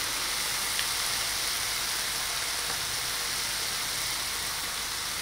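Shredded savoy cabbage sizzling steadily in a frying pan as it caramelizes.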